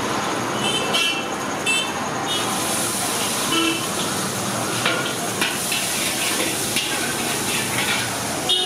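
Chicken pieces sizzling in a large iron wok over a gas burner, with a metal ladle clinking against the wok several times in the first two seconds. The hissing sizzle grows brighter about two seconds in, and there are a few more clinks later.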